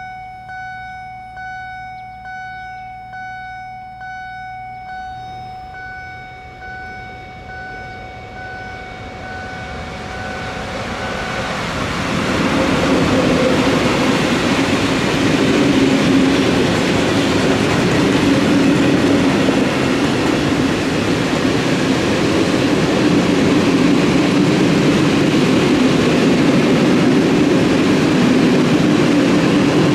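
Level-crossing warning bell dinging a little faster than once a second over a steady tone, stopping about eleven seconds in. An electric-hauled freight train of tank wagons then passes, and the loud, steady noise of its wheels running over the rails fills the rest.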